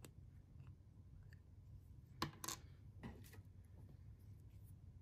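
Small plastic clicks as the screw cap of a plastic ink sample vial is worked off: two sharp clicks a little over two seconds in and another about a second later, over a faint low hum.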